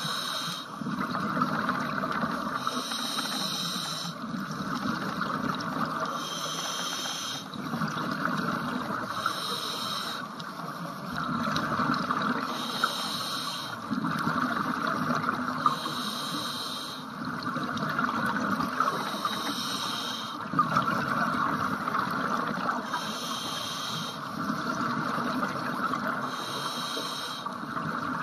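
Scuba diver breathing through a regulator underwater: a hiss on each breath drawn, about every three seconds, over the steady bubbling of exhaled air.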